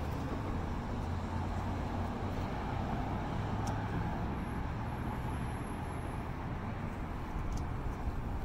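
Steady rumble of road traffic with no rise or fall, and two faint ticks.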